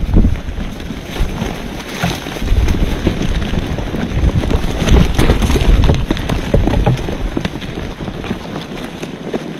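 Wind buffeting the microphone, with scattered knocks and rustles.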